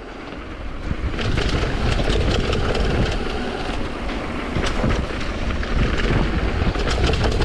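Commencal Supreme DH downhill mountain bike ridden fast down a dirt trail: knobby tyres on dirt and the bike rattling and clattering over bumps, with many sharp knocks, under a steady low wind rumble on the microphone. The noise builds over the first second.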